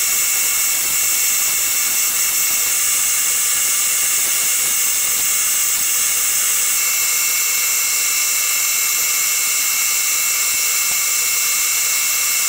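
A hand-held turning tool cutting a spinning cast-resin pen blank on a lathe: a steady high hiss as the plastic peels away, over the lathe's steady whine.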